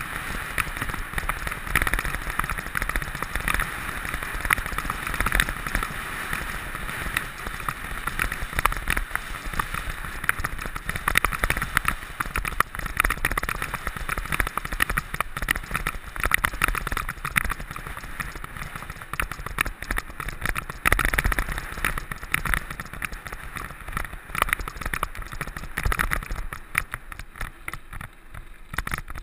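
Mountain bike being ridden fast over a rough track: tyres crunching and the bike rattling in many quick clicks over a steady rushing noise, easing off a little near the end.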